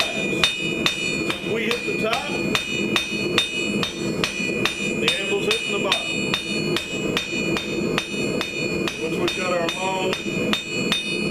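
Hand hammer striking a red-hot quarter-inch square steel bar on an anvil in a steady rhythm of about three blows a second. Each blow is a sharp metallic strike, and the anvil rings on between them.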